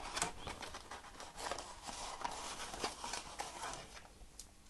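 Faint rustling and light clicks of thin card and paper being handled and pushed through a slot, dying away near the end.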